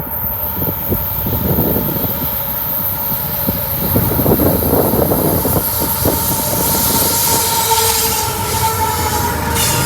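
Freight train rolling past with a steady high-pitched wheel squeal over the rumble of the cars. Strong wind gusts buffet the microphone.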